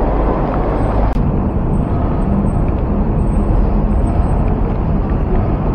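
Loud, steady rumble of road and traffic noise inside a road tunnel.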